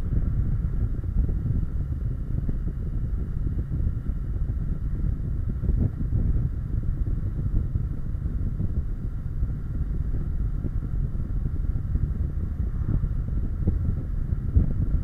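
Kawasaki Versys 650's parallel-twin engine running steadily at road speed, mixed with wind rumbling on the bike-mounted camera's microphone.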